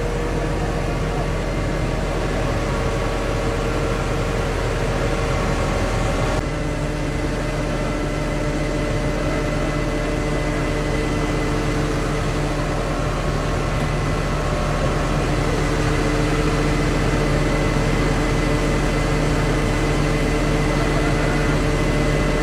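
Truck-mounted crane's diesel engine running steadily under hydraulic load while hoisting an overturned tractor-truck: a low hum with a steady whine over it, the tone shifting abruptly about six seconds in.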